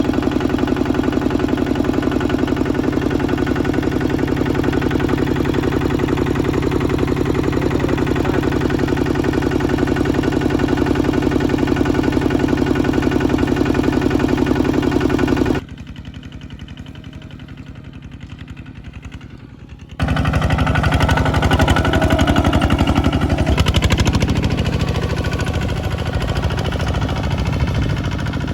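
Bulldozer engine running steadily and loud. About halfway through it drops suddenly to a much quieter engine hum for about four seconds, then comes back loud with a more uneven, changing tone.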